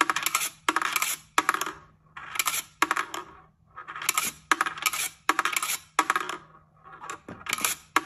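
Perpetual-motion rolling-ball desk toy running: a steel ball whirring around the dish and clacking down through the wire rails, over and over in quick, regular cycles of a little more than one a second.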